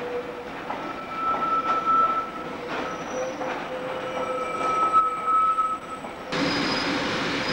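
Train wheels squealing on curved track, a wavering high whine with clicks from the rail joints. About six seconds in the sound changes suddenly to a louder, higher-pitched squeal of a train moving through the curves.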